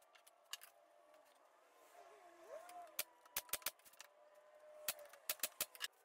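Pneumatic brad nailer firing, about ten sharp shots in two quick runs of five, driving brads into a plywood drawer box.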